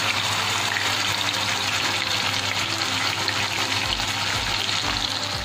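Wet spice paste sizzling as it fries in hot mustard oil in a kadai, a steady hiss that eases a little near the end.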